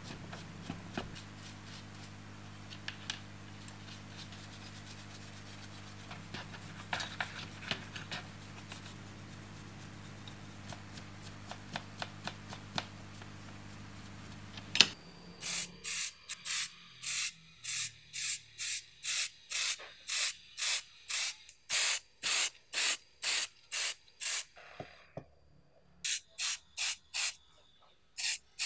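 A stiff brush scrubbing small rusty steel gears and a shaft, faint scratching over a steady low hum. About halfway through, an aerosol spray-paint can takes over, hissing in short regular bursts about one and a half a second, with a brief pause near the end.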